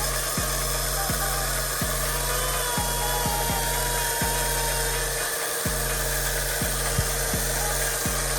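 Electric motor of an RC car running steadily at full throttle under transmitter control, with a brief cut-out about five seconds in.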